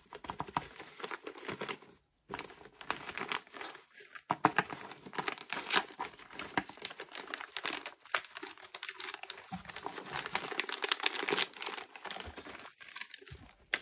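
Plastic mailer packaging crinkling and rustling in irregular bursts as it is cut open with scissors and pulled apart by hand, with brief pauses about two and four seconds in.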